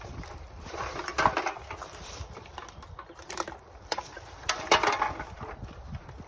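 Litter being picked up: two bursts of crackling, rustling and clinking from aluminium drink cans and a plastic rubbish bag, about a second in and again past four seconds, with a few single clicks between them.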